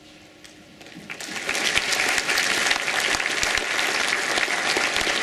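Audience applauding, the clapping starting about a second in and then holding steady.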